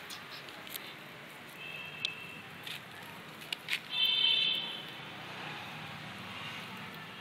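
Puppies play-fighting, one giving high-pitched squeals: a short one about two seconds in and a louder, longer one at about four seconds. Scattered clicks and scuffs come from the puppies moving over gravel and dry leaves.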